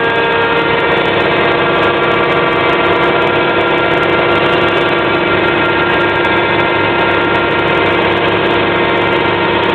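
Homemade CNC milling machine running, its motors giving a steady, unbroken whine made of many tones.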